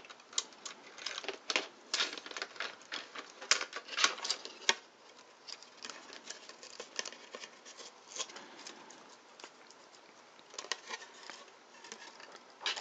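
Irregular small plastic clicks, taps and scrapes as the opened case and inner parts of a cassette recorder are handled during disassembly. The clicking is busiest in the first few seconds, thins out, and picks up again near the end.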